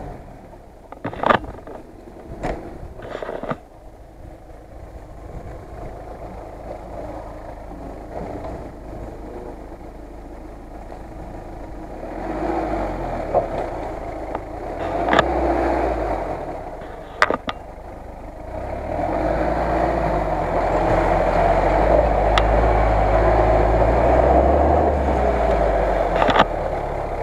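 Lada Niva engine working under load as the off-roader pushes through deep mud. It is fairly quiet at first, with a few sharp clicks, and grows louder from about halfway in, running hardest in the last third.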